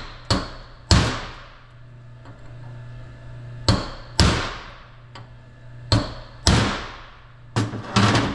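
Hammer blows driving a steel needle post into a torque-hub final drive's planet gear carrier: about nine sharp metallic strikes, mostly in pairs at uneven intervals, each ringing briefly. A steady low hum runs underneath.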